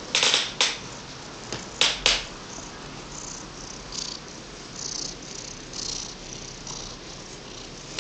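Domestic cat purring right up against the microphone. Its fur brushes the microphone with loud rustles a few times in the first two seconds, then more softly.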